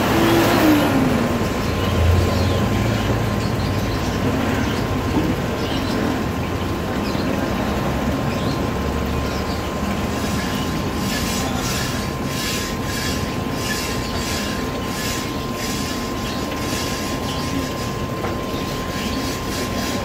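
Aquarium air pump and sponge filter running: a steady rumble and hiss with a faint constant whine.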